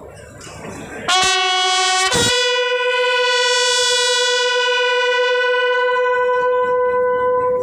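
Military-style bugles sounding a ceremonial call during a flag unfurling: a short lower note about a second in, a brief break, then a long held higher note lasting about five seconds.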